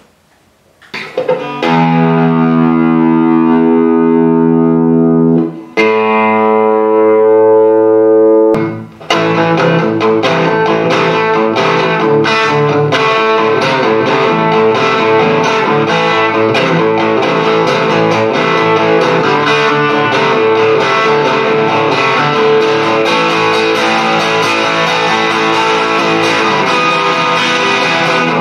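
Eko S300V electric guitar played through an Orange Rocker 15 amplifier: two long ringing chords, each held for a few seconds, then from about nine seconds in a steady stream of fast picked notes and chords.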